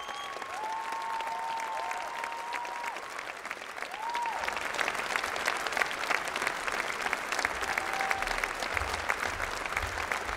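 Large audience applauding in an arena, with a few cheers over the first few seconds; the clapping grows louder about four seconds in.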